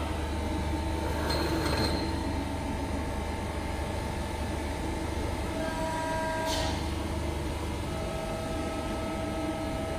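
Hydraulic pump motor of a 90-ton CNC press brake running steadily with a low hum, just started from the foot pedal after the energy-saving shutoff. Faint higher whines come and go over it.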